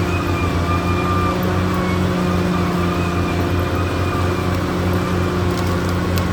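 Caterpillar D6R XL bulldozer's diesel engine running steadily, a low drone with a thin, slightly wavering whine above it. A few faint clicks come near the end.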